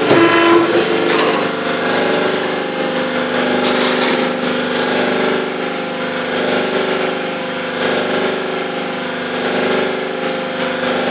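Worm gear reducer with its electric drive motor running steadily, giving a hum of several steady tones. There are a few knocks in the first second.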